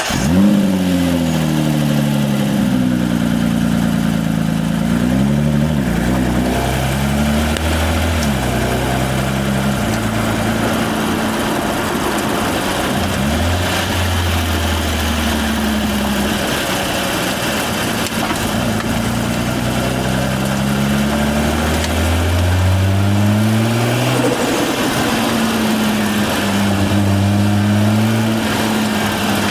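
Stage 4.25 tuned Nissan GT-R R35's twin-turbo V6, running just after starting, with its pitch rising and falling again and again as the throttle is worked.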